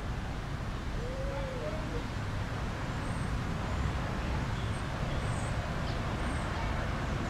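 Steady low outdoor rumble, like distant traffic. About a second in there is a short faint call that rises and falls in pitch, and faint high chirps come now and then in the second half.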